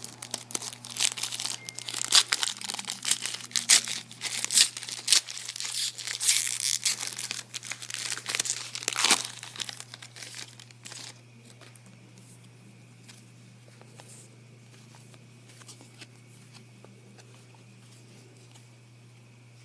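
A trading-card pack's wrapper being torn open and crinkled in the hands, loud and crackly for about ten seconds, then only faint ticks and rustles as the cards are handled.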